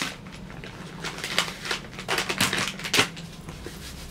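Makeup products and their packaging being handled on a table: a run of light clicks, taps and rustles in quick, uneven succession, over a faint low hum.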